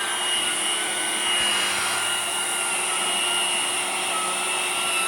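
Hoover Blade cordless stick vacuum running steadily, a constant motor whine with a high steady tone.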